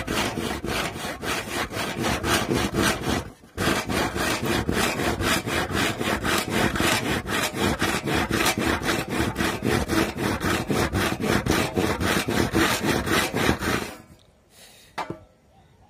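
Hand saw cutting across a thick, weathered wooden plank with quick, even back-and-forth strokes. There is a brief pause about three seconds in, and the sawing stops near the end.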